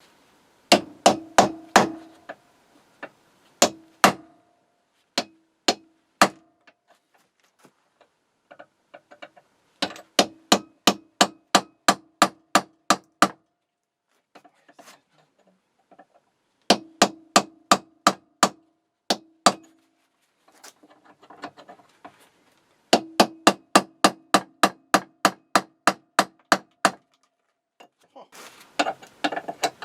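A hammer repeatedly striking a drift to drive out a stuck pin. The blows come in runs of several, about three to four a second, with short pauses between runs, and each blow rings with a metallic tone.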